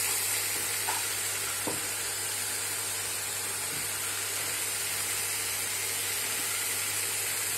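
Chopped vegetables (beans, carrot, capsicum) frying in oil in a pan: a steady sizzle, with one short light knock about two seconds in.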